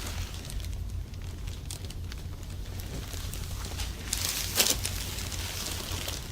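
Hands rubbing and rustling over skin, clothing and the treatment table during a massage, with a louder rustle and a sharp click a little past halfway, over a low steady hum.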